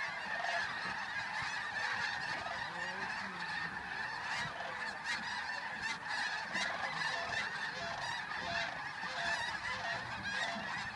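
A large flock of geese honking: a dense, unbroken chorus of many overlapping calls.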